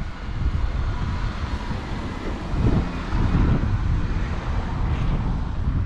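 City street ambience: a low, uneven rumble of traffic mixed with wind buffeting the microphone.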